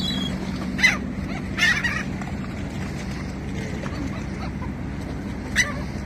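Gulls squawking overhead: three short calls, about a second in, near two seconds, and near the end, over a steady low hum.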